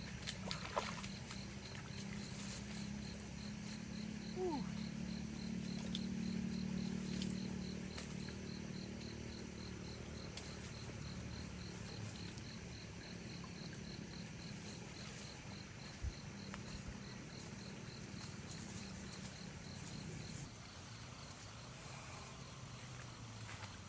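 An insect chirping in an even, rapid pulse, about four chirps a second, over a low steady hum that fades near the end.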